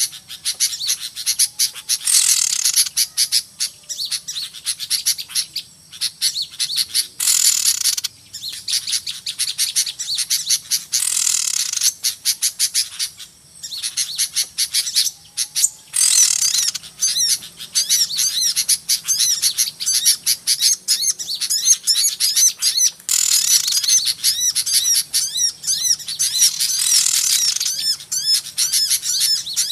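A noisy crowd of small birds chirping and twittering without pause, high-pitched and busy, with louder bursts of rapid trilling every few seconds. It is a bird-trapping lure call ("burcil ribut") meant to draw small birds in.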